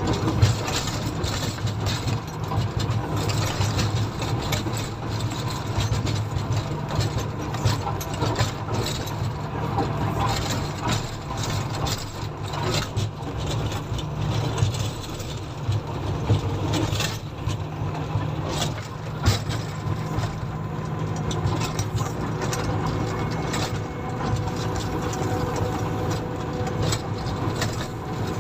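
Komatsu motor grader's diesel engine running steadily, with frequent rattles and knocks from the machine.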